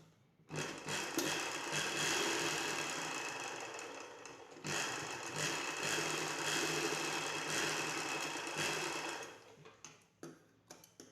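Sewing machine stitching fabric in two runs of about four seconds each with a brief stop between, followed by a few light clicks as it stops.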